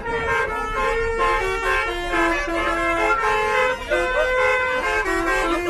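Bus 'basuri' telolet horn playing a tune: several air-horn tones at once, stepping from note to note every fraction of a second.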